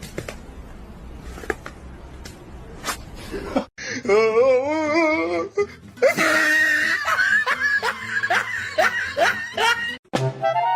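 Quiet background noise with a few light clicks, then, after a cut, loud laughter, wavering at first and then in quick bursts, with music.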